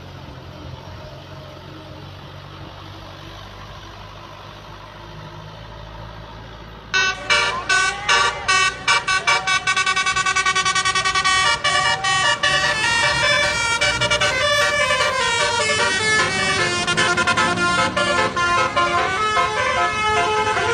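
Tour bus's telolet horn, a multi-note musical air horn, playing a fast, pulsing tune of shifting notes. It starts loud and sudden about seven seconds in, after a low steady engine rumble.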